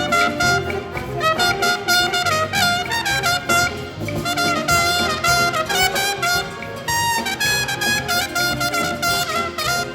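Jazz ensemble playing, its brass section of trumpets and trombones carrying a moving melodic line over a pulsing low accompaniment.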